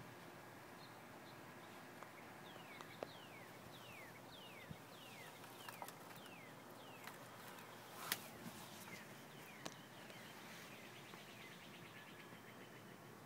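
A bird calling: a run of short whistled notes, each falling in pitch, repeated a little under twice a second. It starts a couple of seconds in and stops a few seconds before the end. A few sharp clicks fall among the notes, the loudest about eight seconds in.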